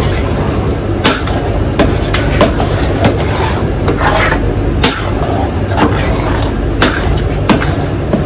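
A long metal spoon stirring thick marinated meat in a large stainless-steel pan, knocking and scraping against the pan's sides and bottom about once a second. A steady low hum runs underneath.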